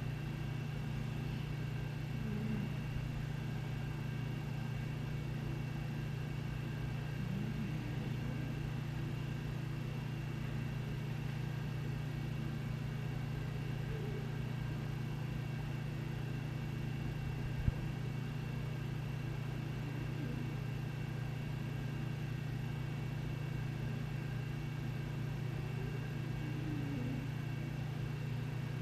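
Steady low hum of a quiet house's room tone, with a few faint soft sounds over it and a single sharp click about eighteen seconds in.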